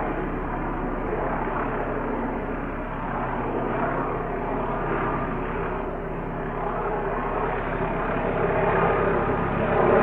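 Helicopter flying overhead: steady rotor and turbine noise that swells and fades slowly, growing louder near the end.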